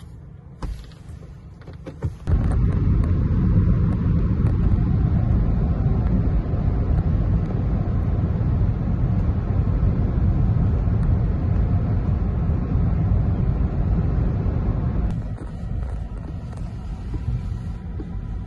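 Road and wind noise from a Rivian R1T electric pickup driving with a boat trailer in tow: a loud, steady low rumble that starts suddenly about two seconds in and eases off near the end.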